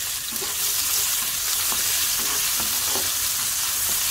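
Chopped onions sizzling in hot soybean oil in a frying pan, stirred with a slotted spatula that knocks and scrapes against the pan a few times.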